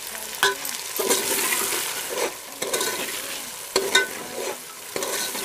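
Chopped capsicum, carrot and tomato sizzling in hot oil in a metal pot, stirred with a metal slotted spoon that clinks and scrapes against the pot several times.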